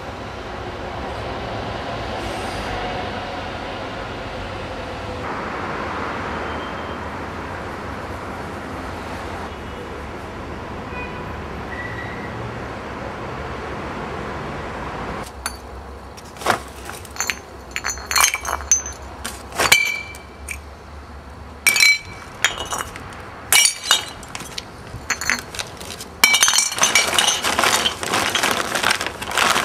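A steady rumble of traffic noise, then from about halfway a run of sharp clinks and cracks of breaking glass, growing into a dense crunching near the end.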